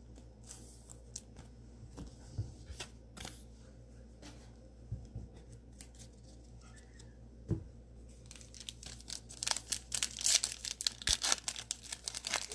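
Cellophane wrapper of a trading-card cello pack tearing and crinkling as it is opened, after a few seconds of light clicks and rustles from cards being handled. The crinkling gets dense and louder about nine seconds in.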